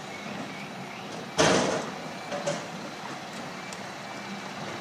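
Scania road train's air brakes letting off a sharp hiss of compressed air about a second and a half in, fading over half a second, with a shorter puff about a second later. The truck's diesel engine runs steadily underneath.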